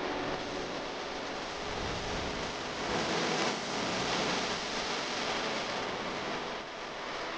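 A steady rushing noise, swelling a little about three seconds in and easing again near the end.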